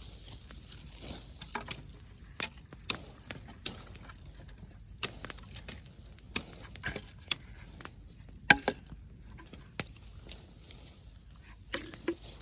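Wood fire crackling: irregular sharp pops and snaps of burning wood, uneven in strength, with one loud snap about eight and a half seconds in.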